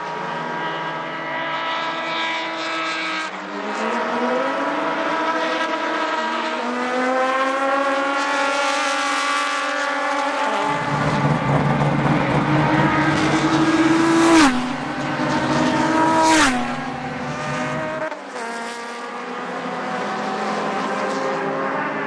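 Inline-six race car engines at high revs, several cars overlapping as they run past. In the middle one car passes close and loud, its engine note climbing and then dropping sharply twice, as at gear changes.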